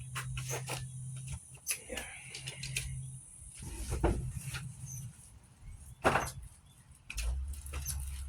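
Scattered knocks and clicks of objects being handled, the loudest about four and six seconds in, over a low hum that stops about three seconds in, with another low hum starting near the end.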